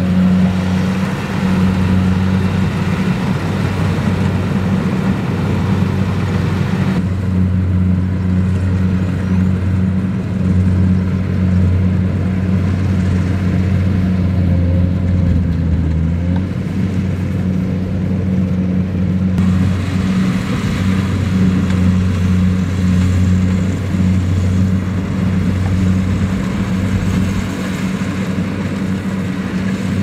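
Kubota DC-70 combine harvester's diesel engine running steadily under load while the machine cuts and threshes rice: a loud, even low hum with higher mechanical noise over it. The higher noise drops away about seven seconds in and returns near twenty seconds.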